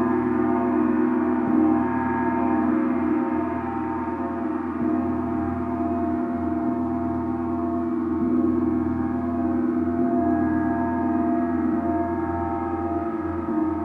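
Gong ringing in a long sustained wash of many overlapping tones, with a steady low hum beneath a shimmer of higher overtones.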